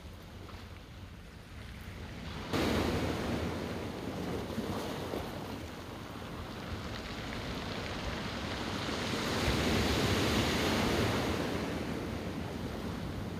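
Ocean surf breaking and washing over a rocky shore, a steady rushing noise that gets suddenly louder about two and a half seconds in and swells again with a bigger wave about ten seconds in.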